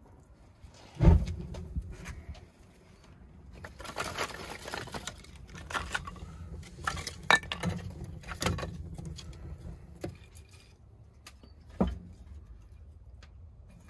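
Split firewood knocking and clattering as it is picked up and loaded into the firebox of a wood-fired oven, with a heavy thump about a second in and another near the end.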